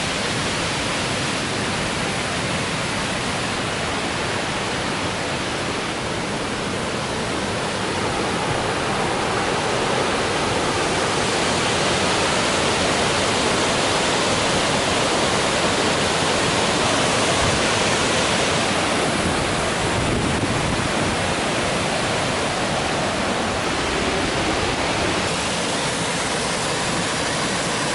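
Water pouring over a wide, low river cascade in spate: a steady rushing that swells louder about ten seconds in.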